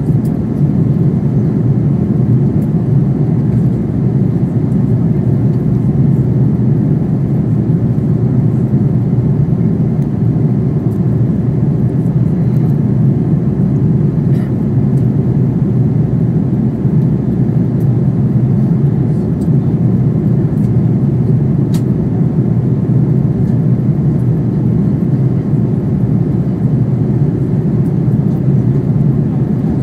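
Steady low cabin noise inside an Airbus A330-900neo in flight: engine and airflow noise from its Rolls-Royce Trent 7000 engines, heard from a window seat by the wing. There are a few faint, tiny clicks.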